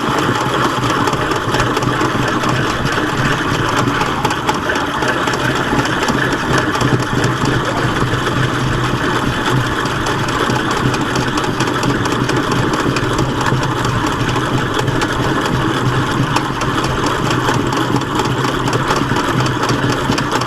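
Honey extractor spinning frames of honeycomb, a steady even whir with a low hum underneath.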